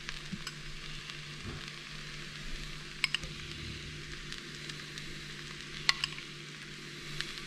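Pinto beans and onions sizzling steadily as they fry in lard in an enamelled cast-iron pan. A few short sharp clinks come about three seconds in and again near six seconds, as a spoon scoops more lard from a bowl.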